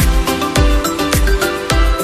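Upbeat electronic background music with a steady kick-drum beat, about two beats a second.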